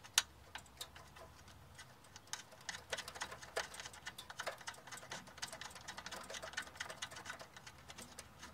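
Socket ratchet clicking in quick, uneven runs of small ticks, with one sharper click just after the start, as the new brake master cylinder's mounting nuts are tightened to the booster.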